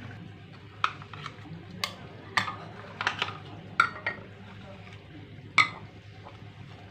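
A run of sharp clinks and knocks, several in a row with the loudest near the middle and about two-thirds through: a steel ladle against a steel tea pan, and ceramic lids and cups set down on glass saucers.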